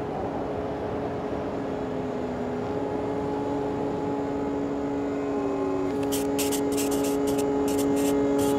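Opening music building up: sustained synth drone notes that shift pitch a few times over a rushing noise, slowly getting louder, with a quick, uneven high ticking beat coming in about six seconds in.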